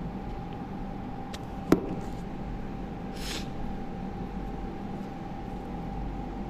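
Steady background hum and low rumble of room noise, with a single sharp click a little under two seconds in and a brief hiss about three seconds in.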